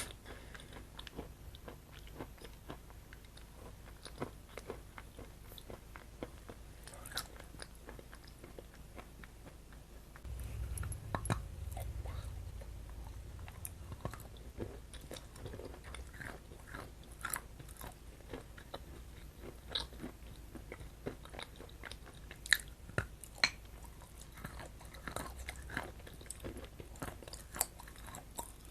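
Close-miked chewing and biting of chocolate: scattered soft crunches and wet mouth clicks, with a low rumble for a few seconds around the middle.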